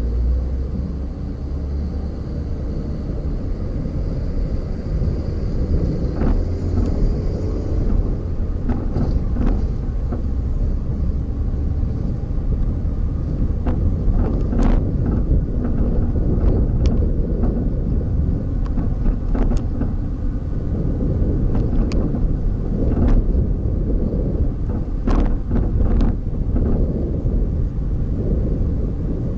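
Steady low rumble of a car driving along a road, with scattered short knocks and clicks, more frequent in the second half.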